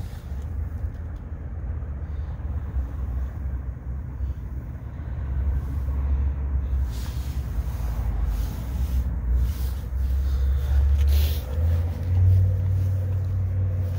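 A low, uneven rumble that grows louder in the second half.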